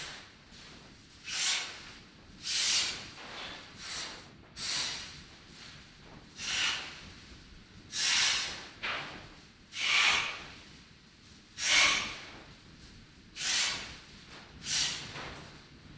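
Sound installation giving out about a dozen short, breathy bursts of hissing noise at irregular intervals, each under a second long. A faint low hum comes in near the end.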